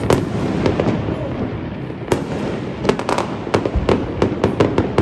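Fireworks going off in a dense barrage: many sharp bangs and cracks over a continuous rumble. There is a brief thinning about a second in, and the bangs come thick and fast again from about two seconds in.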